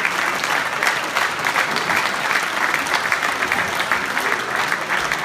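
Crowd applauding steadily, with dense clapping from many hands.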